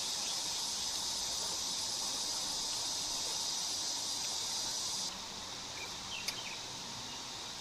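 Steady high-pitched insect buzzing that cuts off suddenly about five seconds in, followed by a single faint click.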